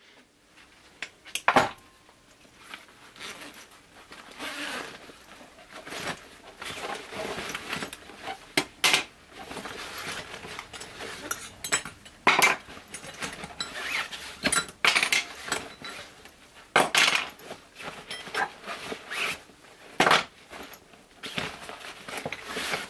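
Metal hand tools such as pliers and an adjustable wrench being taken out of a fabric backpack and set down on a wooden workbench: irregular metallic clinks and clanks, with the bag rustling in between.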